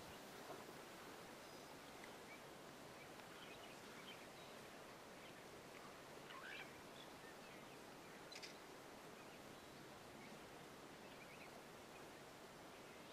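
Near silence: faint outdoor bush ambience with a few brief, faint bird chirps scattered through it.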